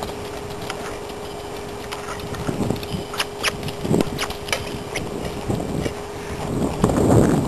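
A Morgan mare's hooves thudding on the dirt footing of a round pen as she canters, with sharp clicks in the middle and a louder low rumble near the end.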